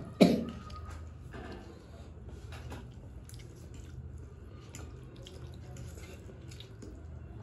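People eating instant noodles: quiet wet chewing and slurping with small scattered clicks, after a brief cough at the very start.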